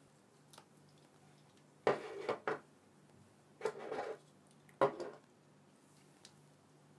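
Handling noise on a tabletop: three short clattering scuffs, each starting with a sharp knock, as a gloved hand sets a small black object down.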